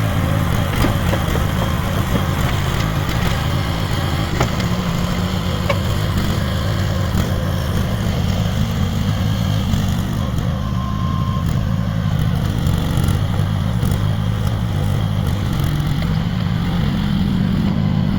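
AGT H12 mini excavator's small engine running steadily, with a couple of light knocks about four and six seconds in.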